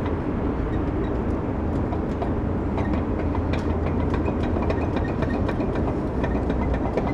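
Front wheel of a Chevrolet Avalanche with a badly worn wheel bearing rocked by hand, the loose hub giving scattered light clicks and knocks. Under it runs a steady low rumble.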